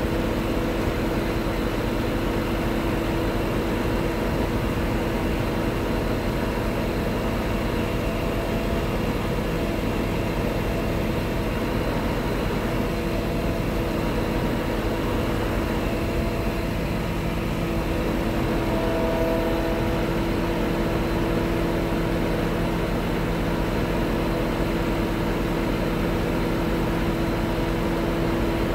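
Scania R truck's diesel engine running steadily with the power take-off driving the hydraulic pump while the truck-mounted loader crane is raised and extended, a continuous hum with a steady whine. A little past halfway a second, lower tone joins in.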